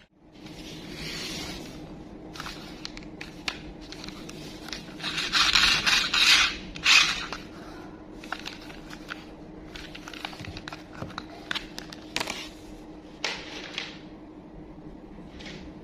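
Toy packaging being handled and opened: scraping and rustling with small clicks and taps. The loudest stretch is three bursts of rustling about five to seven seconds in.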